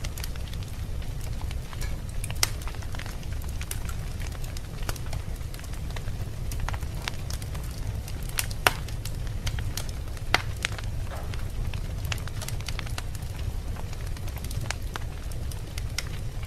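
Log fire burning in a fireplace: a steady low rumble of the flames with irregular crackles and sharp pops, the loudest pops about two and a half, eight and a half and ten and a half seconds in.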